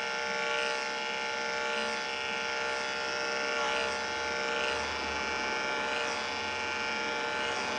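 Andis 5-speed corded dog clipper with a #10 blade and a 5/8-inch attachment comb running with a steady buzz while it is combed through a small dog's coat. The hum stays even, with slight changes in texture as the comb glides through the hair.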